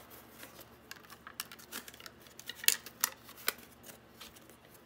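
Rubber bands being stretched and wrapped around a cardboard circle, snapping against the cardboard in a scatter of sharp clicks, the loudest a little under three seconds in and again about half a second later.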